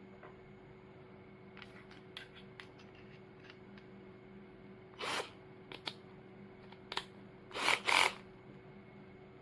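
A handful of short handling clicks and knocks: faint ticks in the first few seconds, then sharper clacks about five, six and seven seconds in and a louder double clack near eight seconds, over a faint steady hum.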